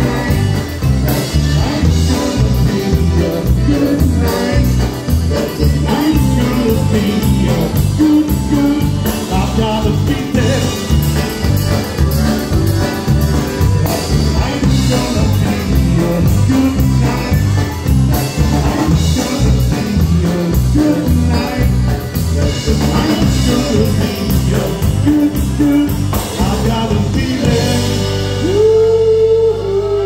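Live polka band playing a polka arrangement of a pop song, with singing, concertina, accordion, horns, bass guitar and a steady oom-pah beat on drums. About two seconds before the end the beat stops and the band holds a final sustained note.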